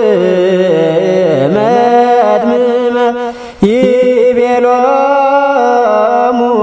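Ethiopian Orthodox liturgical chant in Ge'ez: a voice drawing out long, melismatic held notes that glide between pitches. The chant drops away briefly about three and a half seconds in, then resumes abruptly.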